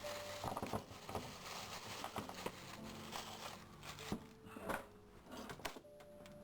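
A series of irregular short clicks and knocks of brake caliper parts being handled and taken apart, over faint background music.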